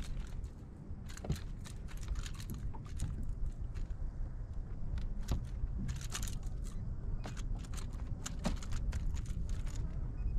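Irregular clusters of small, sharp clicks and crackles over a steady low rumble of wind on the microphone.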